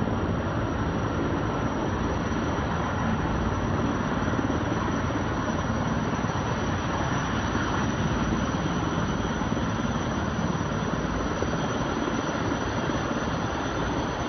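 Firefighting helicopter hovering low over a lake while it sucks up a load of water, its rotor and engines heard as a steady, even noise.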